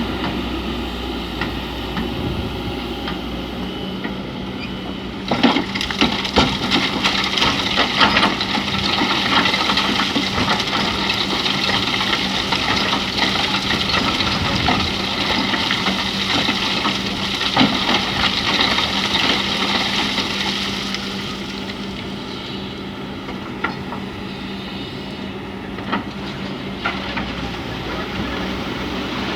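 Excavator's diesel engine running steadily, with a long stretch of clattering, cracking sand and stones from about five seconds in until about twenty seconds in as the bucket works a load.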